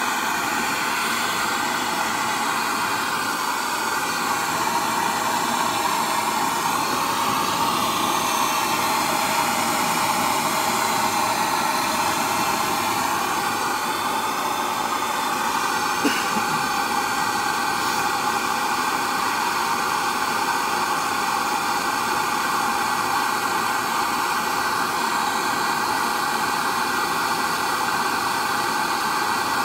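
Gas torch burning with a steady hiss, its flame heating a seized driveshaft to free it. One brief click about halfway through.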